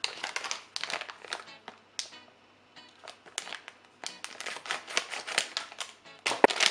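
Plastic blind-bag packet crinkling and crackling as it is handled and opened, in dense runs of crackles with a short lull about two seconds in.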